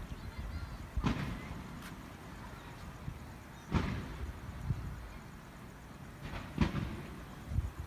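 Fireworks bursting: three louder booms a few seconds apart and a couple of smaller ones between, each trailing off in a short low rumble.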